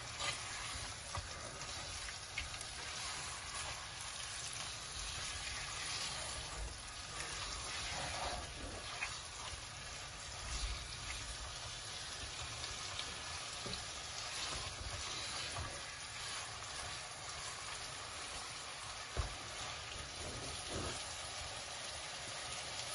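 Marinated chicken sizzling as it fries in oil and spices in a non-stick pot, with a spatula stirring and scraping through it now and then. A single sharp knock comes about nineteen seconds in.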